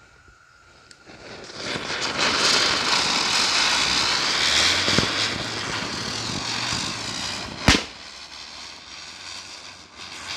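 Two chakri ground-spinner fireworks catch about a second in and spin with a loud, rushing hiss as they shower sparks, the hiss fading over the last few seconds. A single sharp crack comes about three-quarters of the way through.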